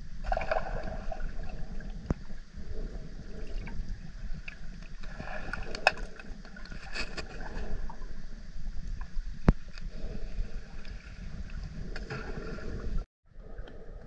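Underwater sound from a submerged camera: a muffled low rumble of water moving around the microphone, with a few sharp clicks and pops. It drops out for a moment near the end.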